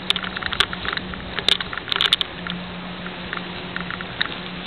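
Bicycle rolling over cracked asphalt: irregular clicks and rattles, thickest in the first couple of seconds and sparser after, over a steady low hum and faint rolling noise.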